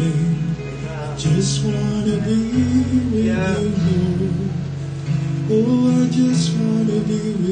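Strummed acoustic guitar chords with a man singing a slow worship song over them.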